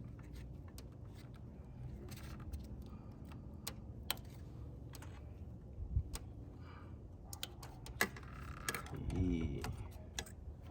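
Scattered small clicks and taps of hands working a plastic electrical connector clip, pressing its release button and prying it loose. A short grunt or mutter comes near the end.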